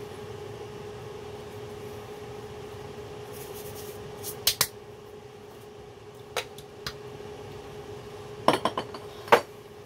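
Kitchen clatter over a steady hum: two quick sharp claps as hands are brushed together about halfway through, a couple of single light knocks, then a quick run of clinks and a knock near the end as crockery and utensils are set down on a worktop.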